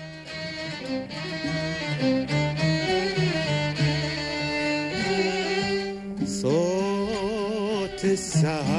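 Arabic ensemble of oud, qanun, violins, cello, double bass and ney playing a song's opening, with sustained bowed-string lines over plucked oud and qanun. About six seconds in, a male voice enters with a long, wavering sung note.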